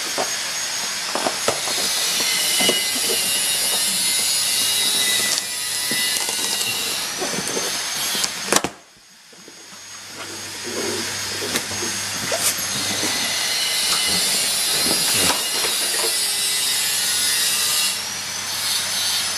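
Electric power tool cutting into wood in two long runs of several seconds each. Its motor whine rises as it spins up and falls as it winds down, with knocks and rattles of the material in between.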